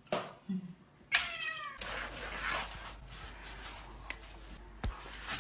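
A cat meowing once, about a second in, a short cry falling in pitch. Then comes a steady rushing noise for about three seconds, with a sharp click near the end.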